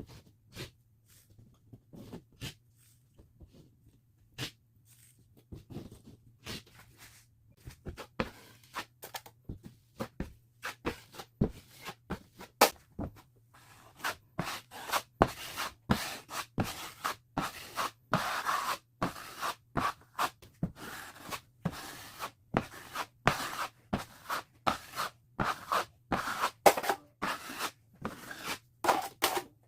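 Hand tool scraping on drywall in repeated short strokes, sparse at first and quickening into a steady back-and-forth about halfway through, over a faint steady hum.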